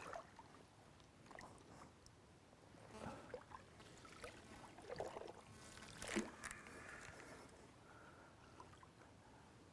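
Faint splashing and sloshing of lake water as a hooked carp is played from the margin, with a few slightly louder splashes through the middle stretch.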